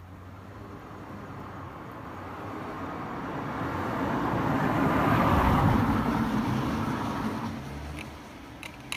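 A car passing by, its noise growing for about five seconds and then fading away, with a couple of faint clicks near the end.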